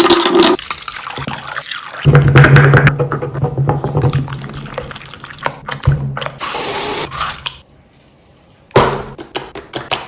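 Slime being crushed and squeezed: wet squelching and crackling in bursts, loudest at the start and again about two seconds in, with a short hissy burst later, a brief pause, and a last squelch near the end.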